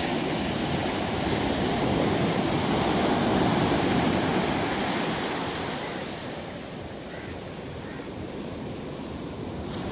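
Rushing water noise like surf: it swells for the first few seconds, eases off after about six seconds and builds again near the end.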